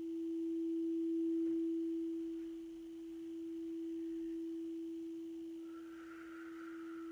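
Crystal singing bowl sounding one steady, pure tone that slowly swells and fades. A second, fainter and higher tone comes in near the end.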